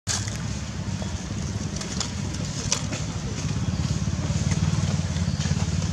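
A vehicle engine running steadily, a low pulsing rumble that grows a little louder about four seconds in, with a few sharp clicks on top.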